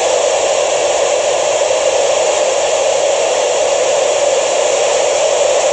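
Ham radio receiver's speaker giving steady, loud FM static hiss between the crew's replies, with no station coming through on the space station's downlink frequency.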